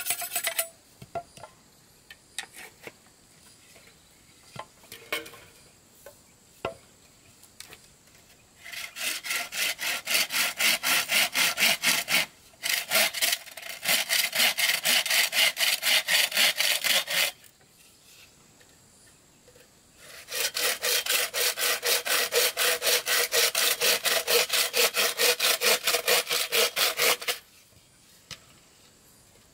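Hand saw cutting wood in two long bouts of quick, even back-and-forth strokes. Scattered light knocks and taps come in the quieter stretches before and between.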